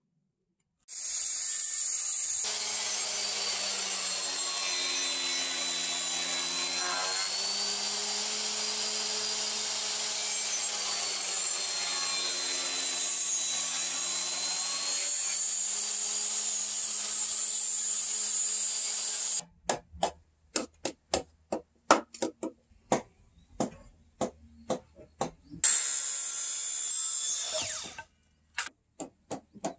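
An electric hand planer, mounted upside down as a small jointer, runs steadily for most of the time as boards are pushed edge-first over it, its motor pitch dipping and rising under the load. Then comes a run of sharp hammer knocks, about two or three a second, and near the end a circular saw makes a brief cut.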